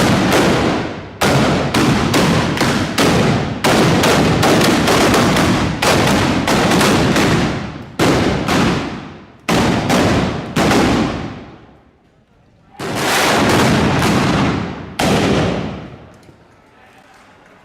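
Volleys of black-powder arquebus shots, many in quick, overlapping succession, each sharp report trailing off in a long echoing rumble. A short lull comes about twelve seconds in, followed by two or three more shots.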